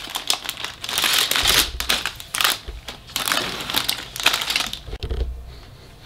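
Clear plastic bags full of Lego pieces crinkling as they are handled and set down. The crinkling thins out about five seconds in.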